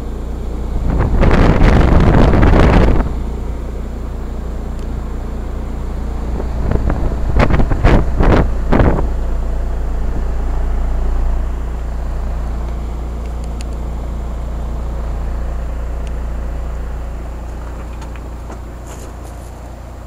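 1988 Heil heat pump's outdoor unit running in heat mode: a steady, smooth, really quiet hum of the compressor and fan. Gusts of wind buffet the microphone about a second in and again around eight seconds in.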